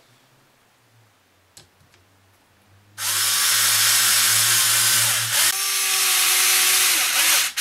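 Cordless drill-driver whirring in two runs, starting about three seconds in with a brief break between them, as it drives a small screw through a suspension link's rod end into an RC crawler axle.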